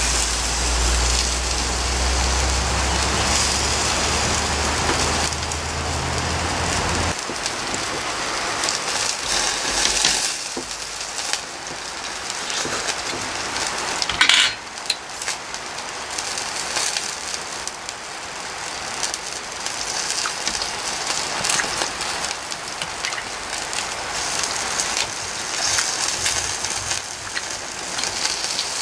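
Pork skewers sizzling and crackling on a tabletop grill as the fat drips onto the fire and flares up, with small pops throughout and one sharper crack about halfway through. A low rumble underneath stops suddenly about seven seconds in.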